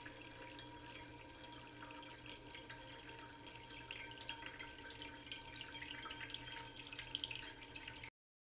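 Steady trickling, dripping water with many small faint pops, which cuts off suddenly near the end.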